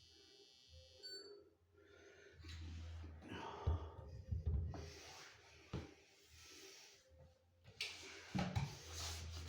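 Irregular knocks, rustles and handling noise, with a high electronic whine that cuts off about a second in.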